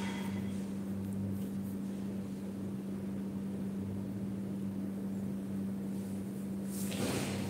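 Steady low electrical hum with faint hiss in a small room, and a brief burst of noise near the end.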